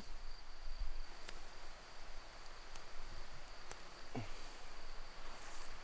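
Quiet woodland background with a steady high-pitched insect trill, like a cricket. Over it come a few faint clicks and the rustle of grass as wild chives are cut by hand with a small knife.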